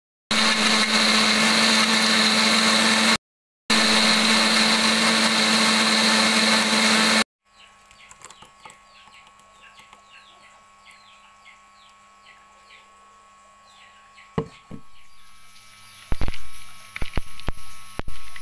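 Panasonic electric blender running steadily, puréeing garlic, ginger and onion, with a brief break about three seconds in; it stops about seven seconds in. Birds then chirp faintly, and a few knocks and clatters come near the end.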